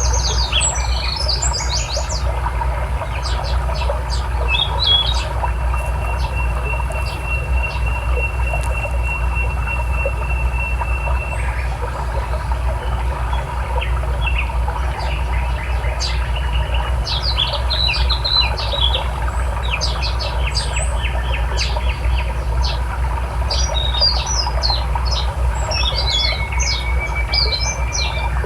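Songbirds chirping and calling in quick scattered bursts over the steady rush of a river. About five seconds in, one long, even, high note holds for several seconds.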